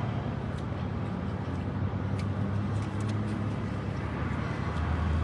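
Steady low hum of a car's running engine, heard from inside the cabin, with a few faint clicks.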